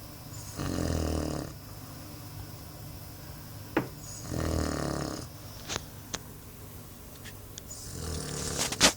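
A sleeping pet snoring: three snores about three and a half seconds apart, each lasting about a second. A few short clicks fall between them, and a sharp click near the end is the loudest sound.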